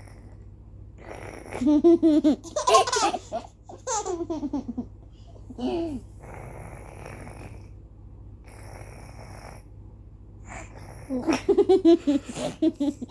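A child laughing in loud bursts, broken in the middle by two long, rough snoring breaths.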